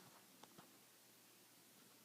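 Near silence: quiet room tone with two faint, short clicks about half a second in.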